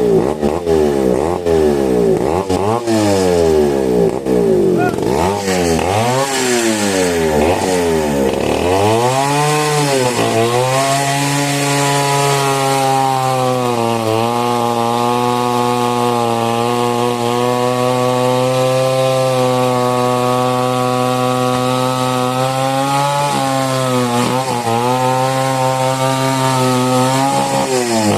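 Two-stroke chainsaw revving up and down rapidly for about nine seconds, then holding a steady, lower pitch under load as the chain cuts into mahogany wood, with brief dips near the end.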